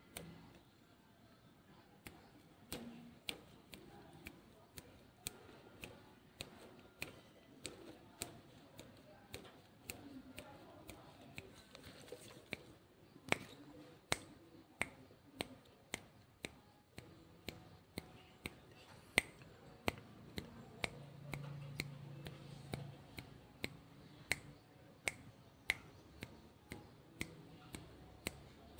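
A run of sharp, snappy clicks, one or two a second at uneven spacing, as rambutan fruits are snapped off a bunch of dried stalks by hand.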